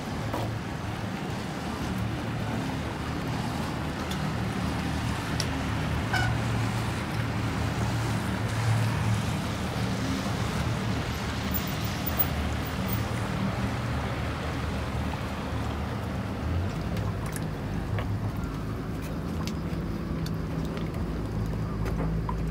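A motorboat's engine running steadily as it moves across the harbour, a low hum over a steady background hiss.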